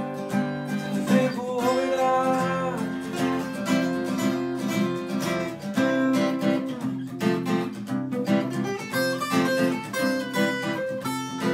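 Two acoustic guitars playing together in an instrumental break of a pop song, picked and strummed chords with a melody line over them.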